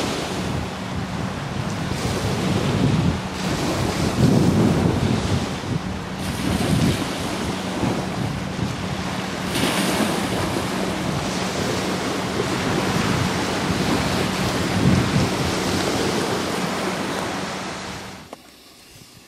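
Wind buffeting the microphone and choppy waves, with the steady drone of a Yamaha 3 hp single-cylinder two-stroke outboard pushing a small inflatable boat at cruising speed.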